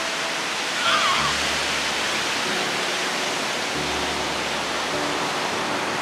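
Ocean surf washing steadily onto a sandy beach, a continuous rush of breaking waves. Soft background music of held notes sits underneath, and a brief high wavering call is heard about a second in.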